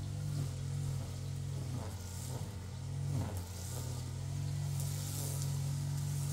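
A vehicle engine running with a steady low drone that dips briefly about two to three seconds in.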